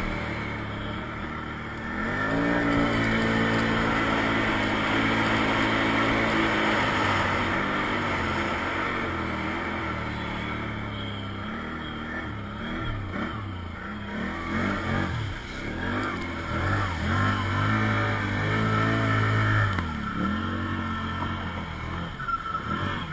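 ATV engine running under throttle, revving up and easing off again and again as the quad climbs and bounces along a rough trail. Near the end it drives into water, and water splashes around the machine.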